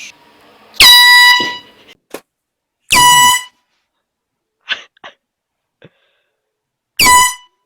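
Three short, loud blasts of an air horn, about one second in, about three seconds in and near the end. Each blast swoops up in pitch at its start, then holds one steady blaring tone. A few brief, faint sharp noises sound between the second and third blasts.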